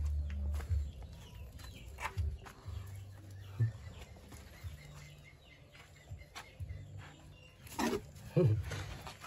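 Handheld movement in a straw-bedded rabbit pen: scattered light clicks and rustles with patches of low rumble from handling of the phone. Near the end comes the loudest sound, a short vocal sound that falls in pitch.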